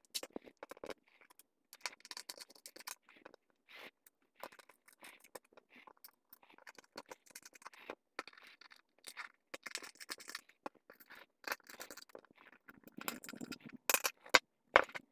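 Back cover of a ZWO EFW Mini filter wheel being screwed shut with a small screwdriver: faint, irregular scraping and ticking of the screws and tool on the housing, with a couple of louder clicks near the end.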